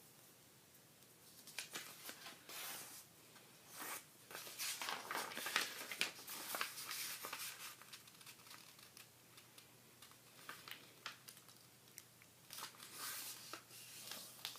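A sheet of origami paper being folded and creased by hand: crinkling and rustling in bursts through the first half, quieter for a few seconds, then a short burst again near the end.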